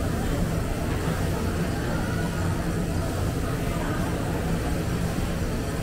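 Steady low mechanical drone of a large drum coffee roaster and its blowers running, with no change in level.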